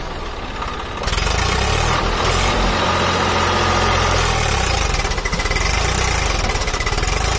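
Swaraj 744 FE tractor's three-cylinder diesel engine running under load as the tractor works itself through deep mud, rising to a louder, higher-revving note about a second in and holding there.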